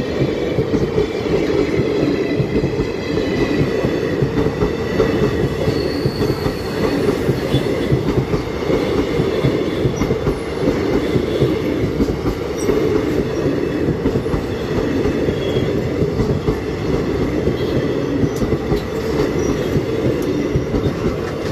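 Indian Railways passenger coaches rolling past close by at speed: a loud, steady rumble of steel wheels on rail, with a faint thin squeal from the wheels above it.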